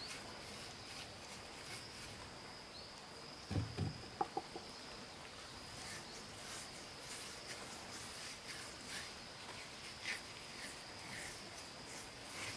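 A chicken clucks a few times, about three and a half seconds in, over a steady high-pitched insect drone.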